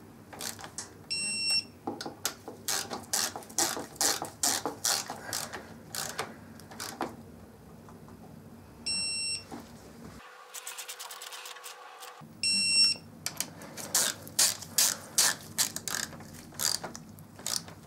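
A ratchet torque wrench clicking in quick runs as bolts are tightened, with a short electronic beep three times.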